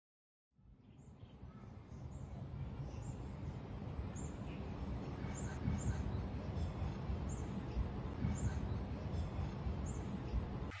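Outdoor ambience fading in about half a second in: a steady low rumble with birds calling now and then.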